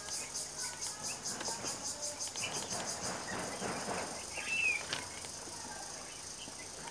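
Background insects chirring in a fast, even pulse that turns into a steady drone about three seconds in, with scattered bird chirps, the clearest a short one about four and a half seconds in.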